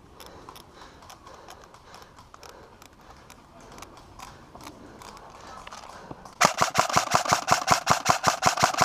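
Airsoft gun firing on full auto, a rapid, even string of shots at about ten a second, starting about six and a half seconds in and still going at the end. Before it, low background with a few faint clicks.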